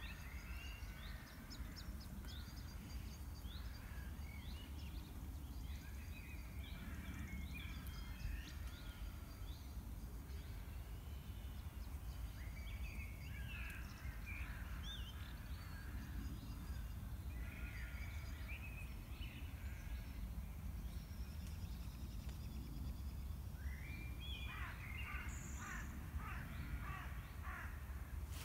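Birds calling outdoors in repeated bursts of short, chattering calls, busiest near the middle and toward the end, over a steady low rumble.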